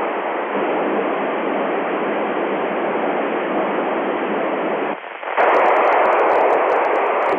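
FM receiver static from a LAPAN satellite's FM repeater downlink on 435.871 MHz, a steady hiss between transmissions. It drops out briefly about five seconds in, then comes back louder with light clicks.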